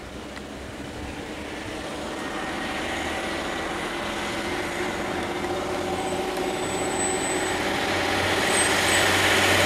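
Tata diesel truck's engine running as it approaches, growing steadily louder as it comes near. Brief thin high squeals sound about six seconds in and again near the end.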